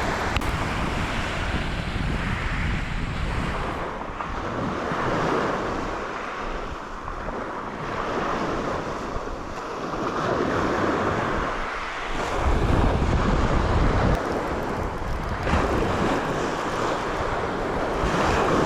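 Sea surf washing onto the shore in repeated surges, with gusting wind buffeting the microphone, heaviest as a low rumble about two-thirds of the way through.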